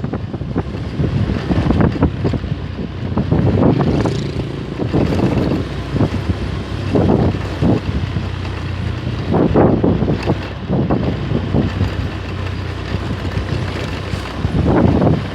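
Engine of road-repair machinery running steadily, with wind buffeting the microphone in irregular gusts.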